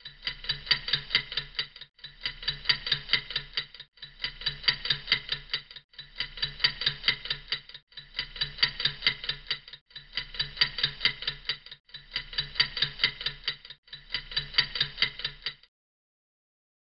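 A short clock-like ticking clip played eight times over, each run about two seconds long with a brief break between, then it stops.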